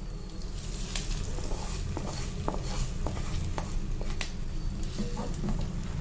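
Wooden spatula stirring thick gongura chutney in a kadai, with scattered clicks and scrapes against the pan, over a steady sizzle of the hot oil tempering of chillies, mustard seeds, garlic and curry leaves being mixed in.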